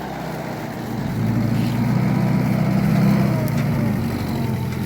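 1940s Willys jeep's four-cylinder engine running under load, growing louder about a second in and easing off slightly near the end.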